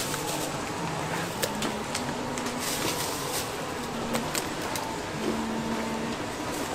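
Steady background hum with scattered light clicks and rustles as raw whole chickens are pulled from a plastic bag and laid on a wooden chopping block.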